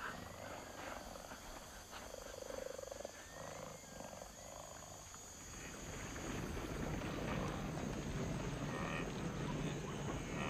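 Wild animal sounds that grow louder about six seconds in into the low grunting of a large herd of wildebeest.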